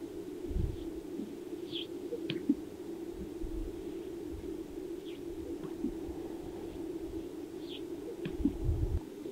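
Male greater sage-grouse displaying on a lek, heard from a distance: short popping and whistling notes from the strutting males' inflated chest air sacs every few seconds, with one sharp pop about two and a half seconds in. Gusts of wind rumble on the microphone several times.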